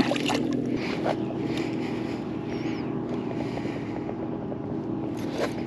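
A fish tossed back splashes into the water right at the start, over a steady low engine drone from a motorboat.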